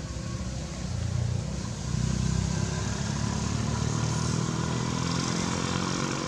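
Motorcycle engine running steadily, louder from about two seconds in.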